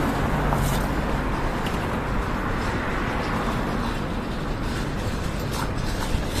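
Steady road traffic from cars driving past on a busy city street, heard from the pavement beside the road, with a low rumble of wind on the microphone.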